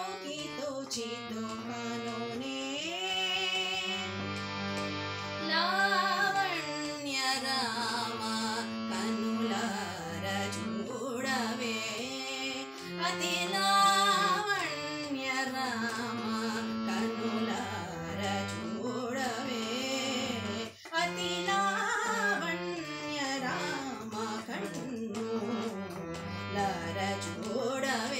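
A woman singing a Bengali song solo, her voice sliding through ornamented melodic turns. Underneath, an instrumental accompaniment holds steady notes that change in steps. There is a brief break about two-thirds of the way through.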